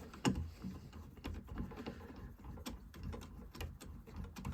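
Irregular small metal clicks and taps from an Allen key working the blade's arbor nut on a cordless table saw, with a sharper click about a quarter second in.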